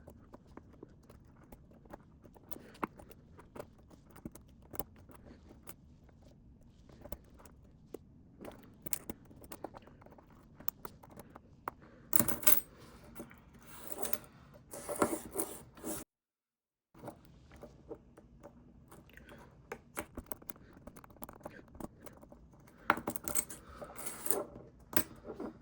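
Small metallic clicks, scrapes and clinks of a watch's metal chain band being worked off the watch case, with louder clusters of jingling around the middle and near the end. The sound drops out completely for about a second partway through.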